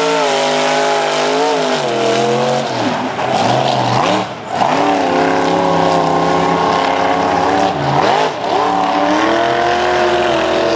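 Military truck's engine running hard at high revs, its pitch rising and falling with the throttle, with brief lifts about four seconds in and again about eight seconds in.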